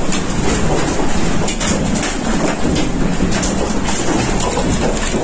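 Winds and rain of an EF4 tornado: a loud, steady rushing noise with a few scattered knocks.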